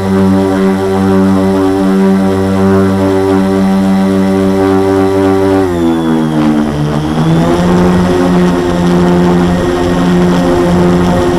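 A quadcopter's four Multistar 2212 920kv brushless motors spinning 10x4.5 propellers, heard close-up from a camera mounted on the frame: a loud, steady motor whine with a hum beneath it. About halfway through, the pitch dips, then it levels off and runs steady again.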